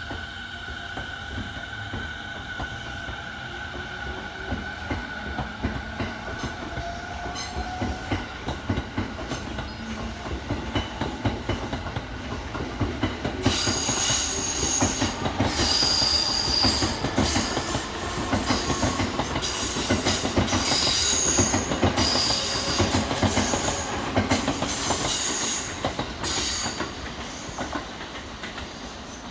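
Electric commuter train moving through the station: a motor whine falling slowly in pitch over the first several seconds, then, from about halfway in, loud metallic squealing of wheels on rail for some twelve seconds before it fades.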